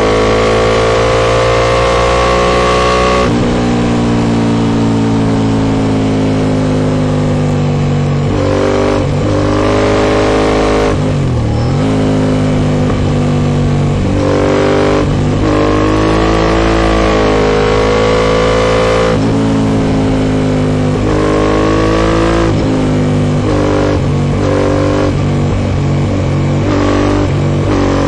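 Aprilia Shiver 750 V-twin running through a full Arrow Dark Thunder aluminium exhaust under hard riding. The engine note rises under throttle and drops sharply again and again as gears change and the throttle closes, with a deep dip about halfway through. The rider admits he stayed a gear higher than he should have all the time.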